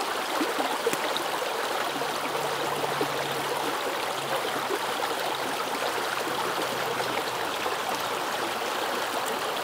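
Small rocky mountain creek running steadily over stones in shallow water.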